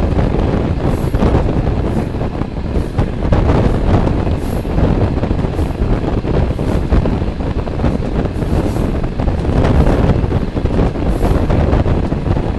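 Wind buffeting the microphone at the open window of a moving passenger train, over the steady running noise of the carriage on the rails.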